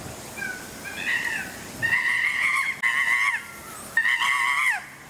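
Chimpanzee screams: a series of high, wavering calls that rise and fall. Short ones come first, then three longer, louder screams from about two seconds in.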